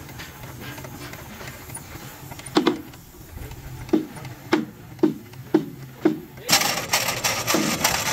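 A heavy red lever-operated jack under a truck chassis being pumped by hand, its mechanism knocking sharply about every half second. Near the end a loud rushing noise takes over.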